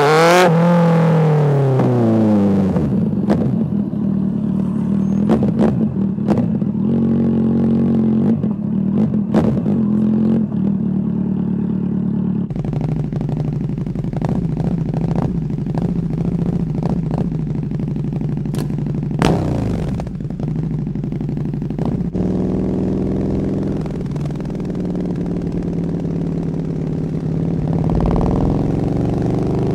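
Sport motorcycle engine heard from the rider's seat: its pitch sweeps down right after the start as the bike slows, runs low and fairly steady at traffic speed with scattered clicks, and revs up again near the end.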